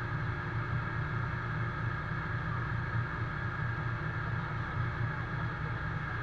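Iveco GCBA 10/32 fire engine's diesel engine running steadily, driving its fire pump to supply a hose. The pump and engine drone is even throughout, with a steady hiss over it.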